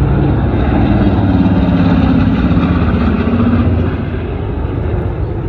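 Boeing B-29 Superfortress's four Wright R-3350 radial engines droning as the bomber passes low overhead. The pitch falls slightly, and the sound gets quieter about four seconds in as it moves away.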